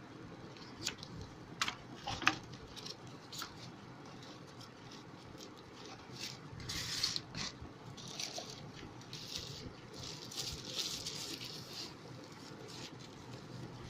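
Packaging being handled during an unboxing: scattered sharp clicks and taps, with louder bouts of rustling about halfway through and again later.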